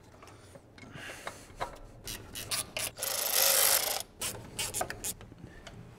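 Hand-tool work on a car's cooling-system fittings: scattered metallic clicks and knocks of tools and parts. About three seconds in there is a ratchet run of roughly a second, rasping, which is the loudest sound.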